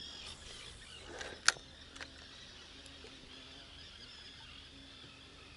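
A spinning rod being cast: a brief swish, then one sharp click about a second and a half in, followed by a faint steady whir of the reel winding the spinner back.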